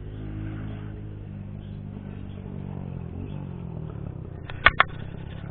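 An engine running steadily, its pitch shifting a little partway through. Two sharp clicks come close together about four and a half seconds in.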